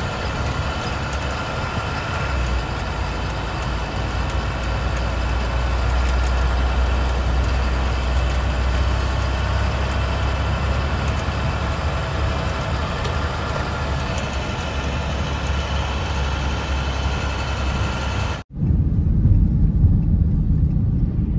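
Steady motor-vehicle noise heard from inside a car: a low engine hum with several steady high tones over it. About 18 seconds in it cuts off abruptly to a different, lower road rumble of a car driving.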